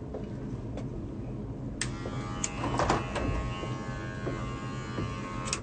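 Electric hair clippers buzzing steadily, with several sharp clicks of a lighter being struck.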